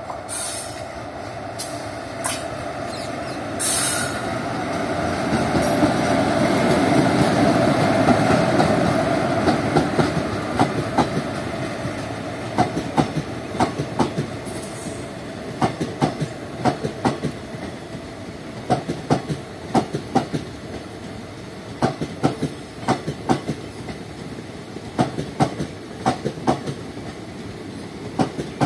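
WAP-4 electric locomotive hauling an express passenger train past at a station, its running noise swelling to a peak about seven to eight seconds in and then fading. The coaches follow, their wheels clicking over rail joints in repeated small groups. A few short high hisses come in the first few seconds.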